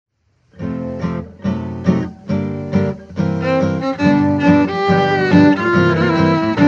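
Instrumental intro of a 1935 western string-band recording: acoustic guitars strike a few separate chords, then about three seconds in a fiddle takes up the melody over steady guitar strumming.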